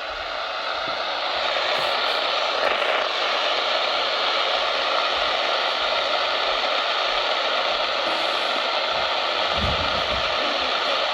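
Radio receiver static: a steady hiss that swells over the first two seconds and then holds level, with a couple of low thumps near the end.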